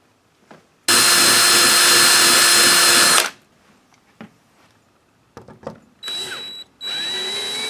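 Power drill running at speed for about two seconds, then two shorter, quieter runs near the end, with a few small handling clicks between; the drill is working on the metal patio door frame to fit a loop lock.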